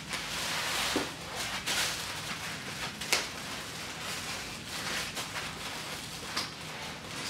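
Packaging and accessories handled on a table: rustling of paper and plastic with a few light knocks and clicks as items are set aside.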